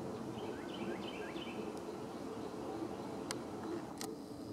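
Steady outdoor background noise with a low hum, with a bird giving three short chirps in quick succession about a second in. Two sharp clicks come near the end.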